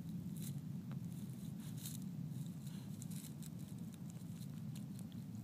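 Scattered small crackles and rustles of dry leaves and pine needles as a puppy chews and shifts about on the ground, over a steady low rumble.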